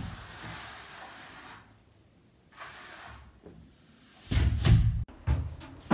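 Heavy single acoustic timber door being handled and opened: faint handle and latch noises, then loud low thumps and knocks from about four seconds in.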